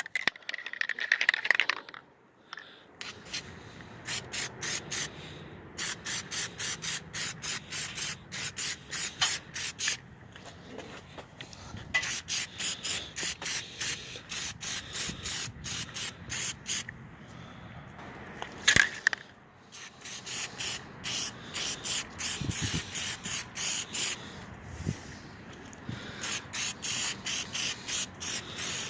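Aerosol can of Plasti Dip sprayed in quick short bursts, a few a second, in runs broken by brief pauses, with one sharp click about two-thirds of the way through.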